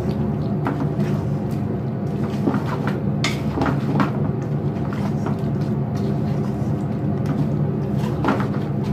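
Wooden spoon stirring wet raw deer meat, sliced onions and tomatoes in a metal karahi, with irregular scrapes and knocks against the pan over a steady low hum.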